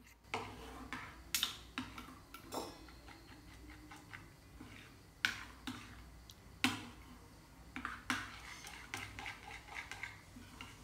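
A metal spoon stirring and mashing soaked cornflakes in a steel bowl. The spoon scrapes and clinks irregularly against the bowl's sides.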